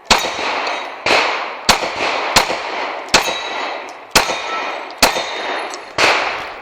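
Pistol shots fired one at a time at an uneven pace, eight shots about a second apart or less, each followed by a short echoing tail.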